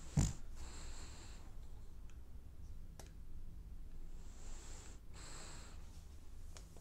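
French bulldog snoring in its sleep: a short snort just after the start, then slow, hissing, wheezy breaths, the next one coming about four and a half seconds in. A few faint clicks in between.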